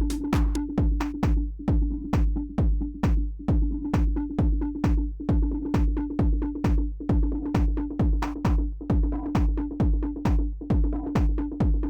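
Electronic dance music with a steady drum-machine kick drum beating about twice a second, crisp hi-hat ticks between the kicks and a held bass note underneath.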